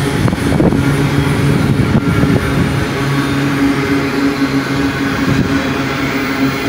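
Double-stack container train's well cars rolling past: a steady rumble of steel wheels on rail with a steady low hum underneath.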